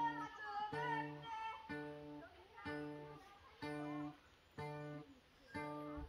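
Acoustic guitar playing the slow introduction to a song, one chord struck about once a second, each held briefly and then stopped.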